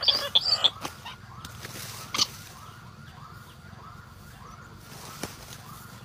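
A bird calling. It starts with a quick run of high chirps, then gives a long, even series of soft rising-and-falling notes, about two or three a second. One sharp click sounds about two seconds in.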